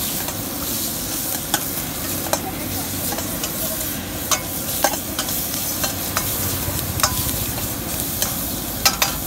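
Chopped vegetables sizzling in hot oil in a wok as they are stir-fried with a long steel ladle. The ladle scrapes the pan and clinks against it at irregular intervals over the steady sizzle.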